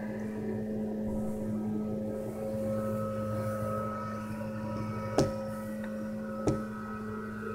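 Leaf blower running steadily with a droning engine tone. Two sharp knocks, about a second and a half apart, come in the second half.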